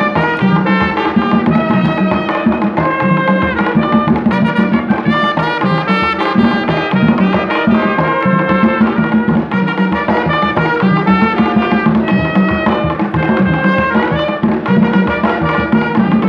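Live Haitian folk dance music: tall hand drums beat a steady rhythm under a trumpet playing the melody.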